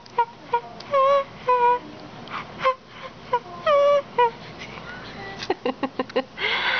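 A young baby cooing and squealing in short, high-pitched calls, several in a row, followed by a quick run of short vocal pulses and a breathy sound near the end.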